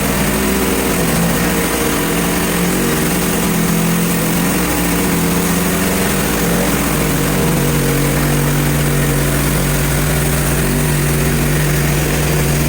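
Portable bandsaw mill running steadily: its gas engine under load, with the hiss of the band blade cutting through a hard maple log. The engine note shifts slightly partway through.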